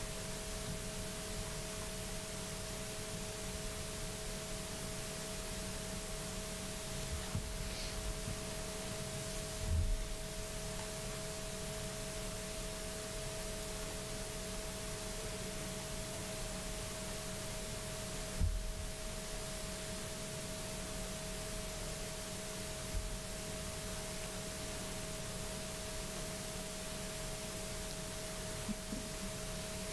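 Room tone: a steady hiss under a steady electrical hum of a few tones, with two brief low bumps, one about a third of the way in and another just past the middle.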